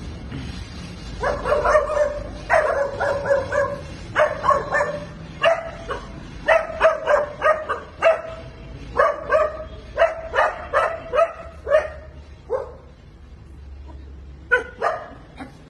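Dogs barking at a monkey in quick runs of sharp barks, about two or three a second. The barking dies away about three-quarters of the way through, with a last pair of barks near the end.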